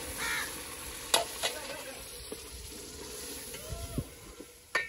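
Metal spoon stirring chicken in an aluminium pot over a wood fire, with a few sharp clinks against the pot over a steady sizzle of cooking.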